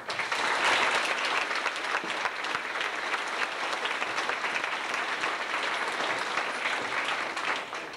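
Audience applauding, starting suddenly and fading out near the end.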